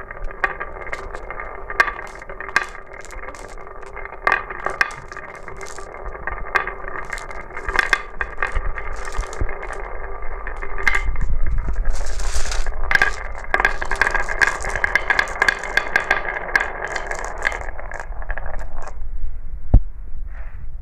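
Glass marbles rolling and clattering down a marble-run track: a steady rolling rumble with a ringing hum and many sharp clicks as marbles knock against the track and each other. It gets louder about halfway through, stops about nineteen seconds in, and one sharp click follows.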